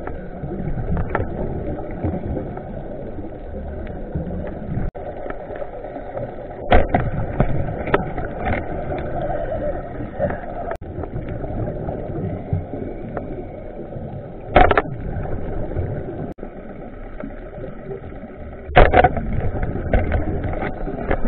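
Muffled underwater noise heard through a waterproof camera housing: a steady low rumble with several sharp knocks and clicks, the loudest about two-thirds of the way through and near the end.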